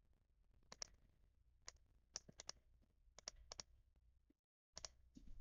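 Faint computer mouse clicks, about a dozen short sharp clicks, several in quick pairs, as objects and material settings are selected one after another.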